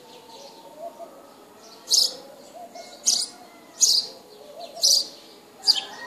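Small birds chirping close by: a run of five sharp, loud chirps about once a second from about two seconds in, over softer low warbling calls.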